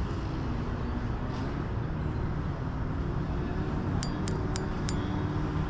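Steady outdoor wind noise on the microphone by a pond, with a quick run of about five sharp, high clinks roughly four seconds in.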